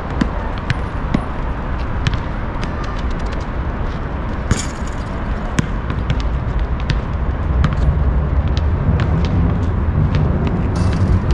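Scattered sharp knocks of a basketball bouncing on an outdoor asphalt court, over a steady low rumble that grows louder about two-thirds of the way through.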